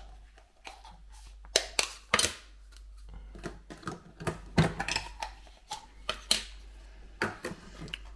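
Irregular light clicks and taps of small plastic and paper items being handled on a table: a clear plastic seed-pod dome and paper seed packets, about eight sharp ticks with the strongest a little after 1.5 s, around 2 s, about 4.5 s and just after 6 s.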